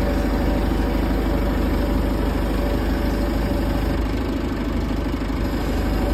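Flatbed truck's engine idling steadily with an even pulse.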